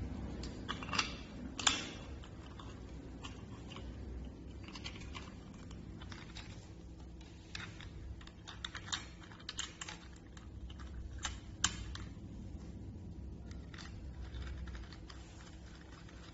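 Irregular light clicks and taps of metal door-lock hardware being handled as the lock cylinder is fitted, with two sharper clicks, about two seconds in and near twelve seconds, over a faint steady low hum.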